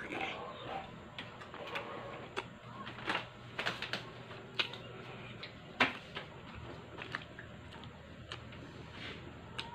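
Balut eggshell being cracked and picked off by fingers: an irregular run of sharp crackling clicks, thickest in the middle, mixed with close chewing and slurping mouth sounds. A low steady hum runs underneath.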